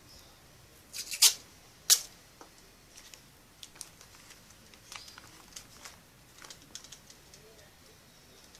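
Sharp clicks and small snips from hands-on craft work. Two loud clicks come one after the other a little over a second in, followed by lighter, scattered ticks.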